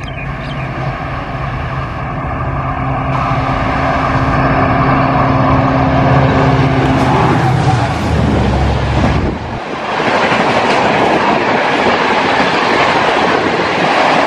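EMD WDP4 diesel locomotive's two-stroke engine running hard as it approaches at speed, growing louder over the first few seconds. About nine and a half seconds in it gives way abruptly to the rush and wheel clatter of LHB passenger coaches passing close by at speed.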